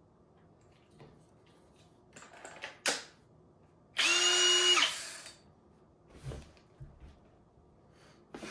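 Ridgid GEN5X brushless hammer drill (R86116): a battery pack clicks into the handle, then the trigger is pulled once. The brushless motor spins up and runs free for about a second with a steady whine, then winds down. A few light knocks of the drill being handled follow.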